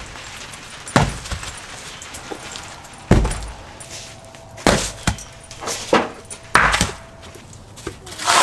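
Stones being handled and set down, giving a series of irregular heavy thuds and knocks, several of them deep.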